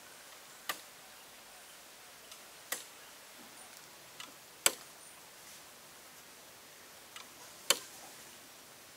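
Sharp wooden knocks from a home-made stick-and-bamboo swing and its spoked drive wheel as the mechanism turns, four strokes about two seconds apart with a few fainter ticks between.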